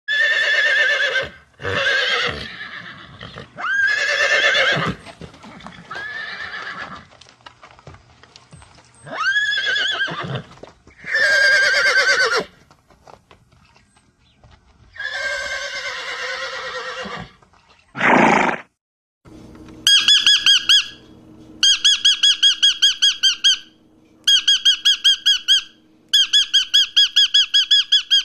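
A sequence of separate animal calls, among them horse whinnies, each a second or two long. From about two-thirds of the way through, a fast, high, pulsing squawk comes in repeated bursts of about two seconds, typical of a parrot.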